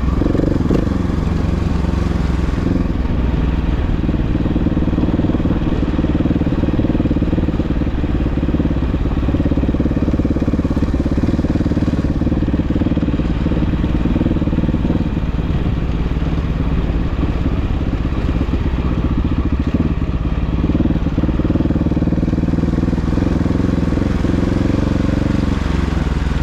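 Off-road vehicle engine running steadily under way, its pitch rising and falling slightly a few times.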